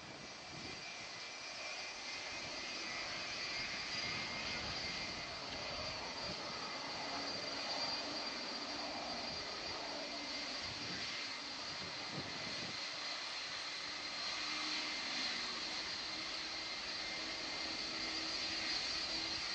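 Jet engines of a Boeing 757-200 running: a steady rush with a high whine held on top, joined about seven seconds in by a low steady hum.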